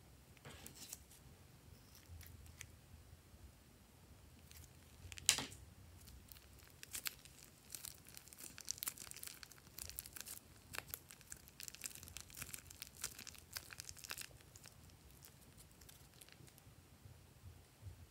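Quiet crinkling and crackling of a clear plastic piping bag full of foam beads being handled and squeezed, the beads pushed out of the bag onto more foam beads. One sharp, loud crackle comes about five seconds in, then a dense run of crackles from about seven to fourteen seconds.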